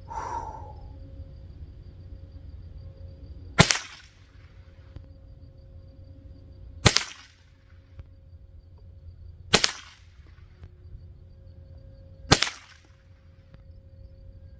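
Four single shots from a Marlin .22 LR rifle, evenly spaced about three seconds apart, each a sharp crack with a short fading tail.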